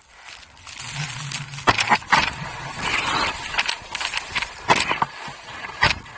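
Skis scraping and hissing over snow during a descent, uneven in loudness, with several sharp knocks.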